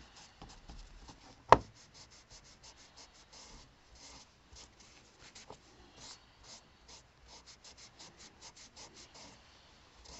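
Short, scratchy rubbing strokes, repeated irregularly, as rust remover is worked onto the rusty metal frame of an old revolver, with one sharp knock about a second and a half in.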